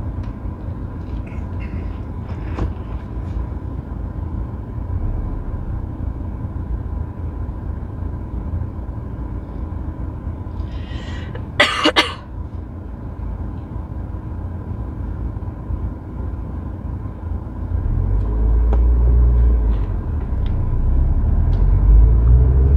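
Car engine idling, heard from inside the cabin while the car waits in stopped traffic, with a person coughing once about halfway through. In the last few seconds the engine gets louder as the car moves off.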